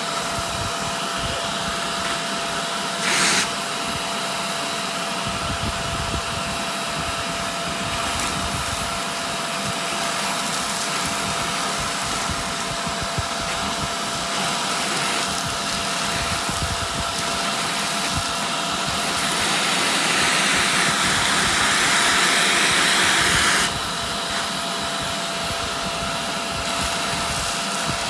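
Vacuum cleaner running steadily with a steady whine, its hose wand sucking dust out of the cloth outer bag of a Sanitaire upright vacuum. A short loud burst comes about three seconds in, and from about nineteen seconds in the suction turns louder and hissier for a few seconds before dropping back suddenly.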